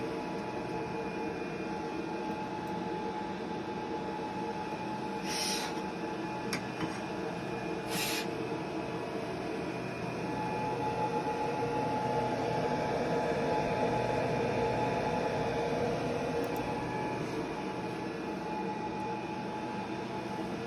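Laser marking machine running while it marks stainless steel: a steady fan hum with a few steady tones, the buzz swelling a little about halfway through. Two short hisses break in during the first half.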